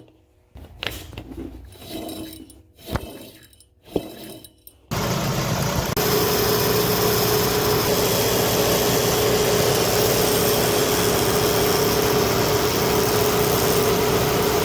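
A few faint knocks, then about five seconds in a running car engine comes in loud and steady, with a strong steady whine from a damaged air-conditioning compressor pulley bearing.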